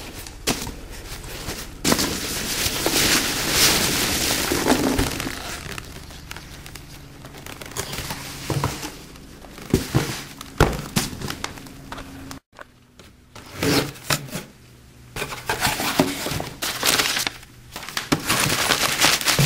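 Foam packing peanuts and crumpled kraft paper rustling and crinkling as a cardboard shipping box is unpacked by hand, in uneven bursts with quieter pauses between.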